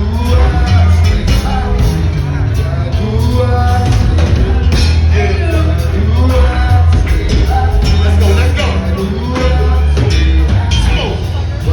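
Go-go band playing live, with singing over a heavy, steady bass line and a percussion-driven groove.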